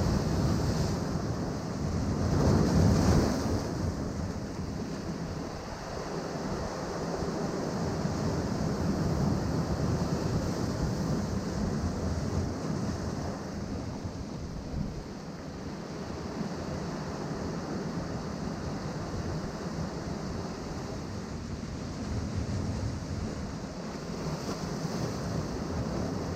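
Ocean waves washing in and breaking against rocks, a steady rushing surf with a louder surge about three seconds in and gentler swells later.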